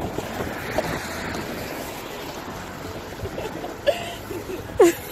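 Steady rushing hiss of a car's tyres on the wet, slushy road, with a few short cries that bend in pitch near the end.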